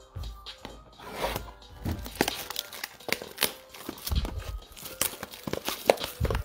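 Packaging on a Panini Prizm basketball blaster box being crinkled and torn open by hand: an irregular run of crackles and rips that starts about a second in.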